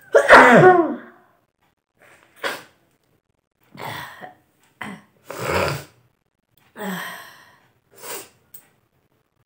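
A woman sneezing loudly once, her nose tickled with a long stem of grass, the voiced sneeze falling in pitch. Several shorter, quieter breathy bursts follow over the next seconds.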